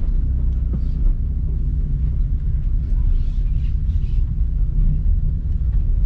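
Low, steady rumble of a car driving down a slope.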